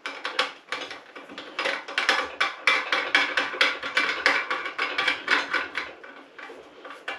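Fast, uneven run of ratchet-like clicks as the back nut is spun up the thread of a basin waste fitting under the basin. The clicks are loudest in the middle and die away near the end.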